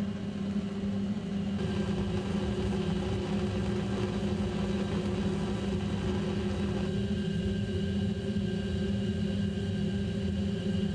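Bunsen burner flame running steadily as it heats a test tube: a low rumble with a steady hum.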